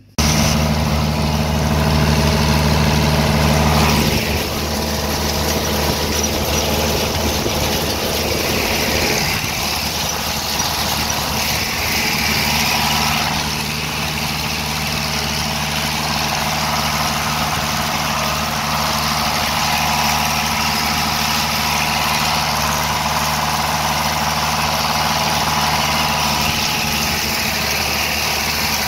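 A farm machine's engine running steadily, its sound shifting slightly about four seconds in and again around nine seconds.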